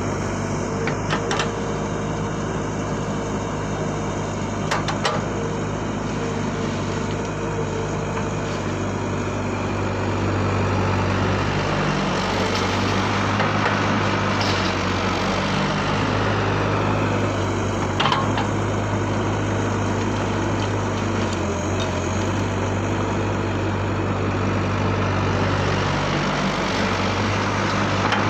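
Radio-controlled Huina construction machines running: a steady mechanical whir and hum, with a few sharp clicks about a second in, around five seconds in and again near the middle.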